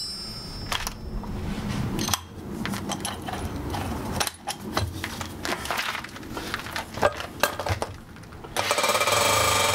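Clicks and knocks of a 1-inch SDS drill bit being handled and fitted into the chuck of a Titan TTB653 SDS hammer drill. About a second from the end the drill starts up and runs loud and steady with a fast, even rhythm.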